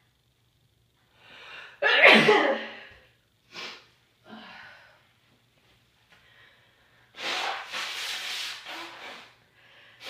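A person with a cold draws a quick breath and sneezes loudly once about two seconds in, then takes short breaths or sniffs. A longer rough, breathy noise follows from about seven seconds in.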